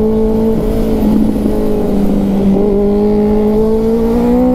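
Motorcycle engine running at a steady cruising pitch, the note sagging slightly midway and then climbing as the bike speeds up near the end, over a low wind rumble on the microphone.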